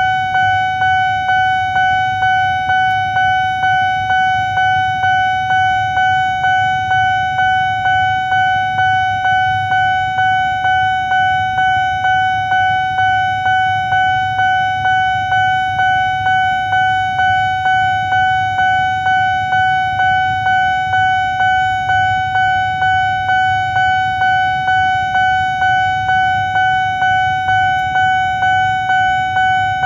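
Railway level crossing warning alarm sounding from the signal post's loudspeaker: an electronic bell tone struck over and over in an even, quick rhythm, each stroke ringing into the next. It signals that a train is approaching and the crossing is closed.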